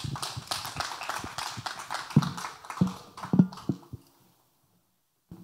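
Congregation applauding, with three heavy thumps about two, three and three and a half seconds in; the applause dies away about four seconds in.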